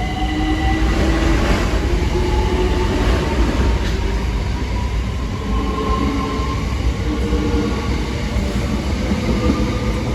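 A pair of Class 376 Electrostar electric multiple units pulling away and accelerating, with the traction motor whine climbing steadily in pitch over a constant low rumble of the train.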